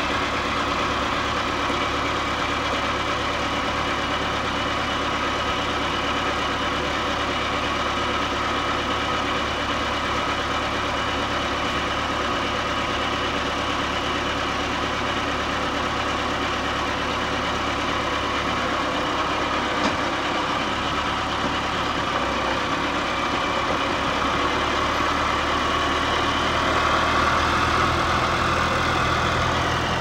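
Massey Ferguson MF3070 tractor's diesel engine running steadily while it pulls a loaded boat trailer up a slipway. The engine note rises a little and gets louder about 25 seconds in, then eases back near the end.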